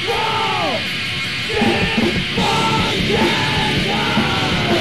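Loud rock song with shouted vocals over the full band; the vocal lines come in several phrases, each dropping in pitch at its end.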